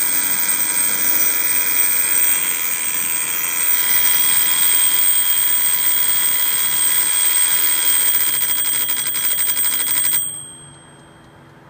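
Bulova copper wind-up alarm clock going off: its hammer rattles rapidly on the twin bells on top, a loud continuous ringing that cuts off about ten seconds in.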